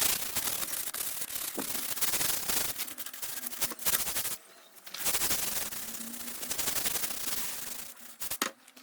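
Wood being sanded or rubbed down by hand in quick scraping strokes. It comes in two long spells with a short pause about four and a half seconds in, then stops with a couple of light knocks near the end.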